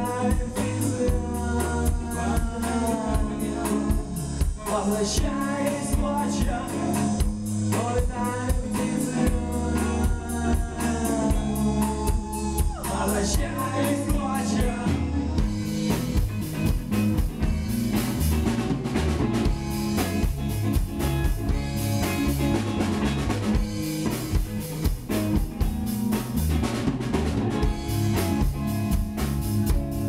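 A rock band playing live on electric guitar, electric bass and a drum kit, with a steady drum beat under a wavering melodic line.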